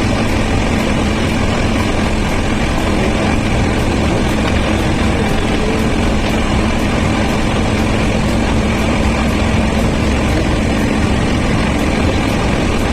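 Passenger train running, a steady rumble and rush of noise with no breaks.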